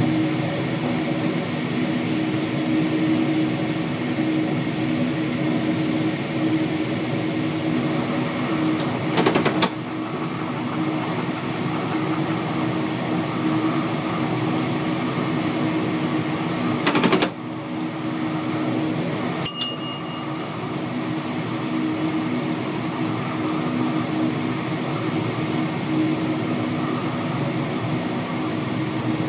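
Inside the driver's cab of a 1962-series NMBS classic electric multiple unit running along the line: a steady mechanical drone with a low hum of several steady tones over wheel and rail noise. Sharp clatters come about nine and seventeen seconds in, the running noise drops a little after the second, and there is a short click with a brief high beep a couple of seconds later.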